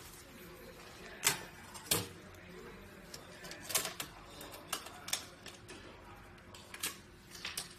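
Irregular sharp clicks and knocks of an iPad and the metal lock-frame of an anti-theft tablet enclosure being handled and fitted together, the two loudest a little over a second in and near two seconds.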